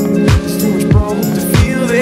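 Background music with a steady beat: a deep bass drum whose pitch drops on each hit, about three hits in two seconds, over sustained chords and crisp high percussion.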